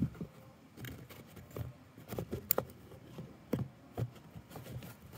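Irregular light knocks, taps and clicks of toys being handled and set down on a hard surface, several in a second at times, with the loudest knock about two and a half seconds in.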